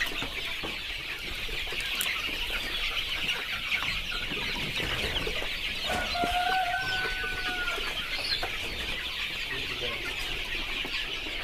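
A crowd of young Darag chicks peeping continuously as they flock to a feeder being filled. One drawn-out tone of about two seconds sounds near the middle.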